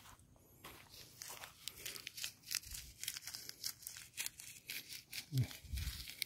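Close, rapid crinkling and rustling: a run of small dry crackles as something dry is handled.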